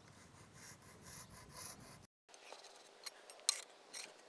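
Pencil scratching in short strokes along a metal square as a cutting line is marked on a stone slab. After a brief cut, three sharp clicks of the metal square knocking against the stone as it is picked up, the middle one the loudest.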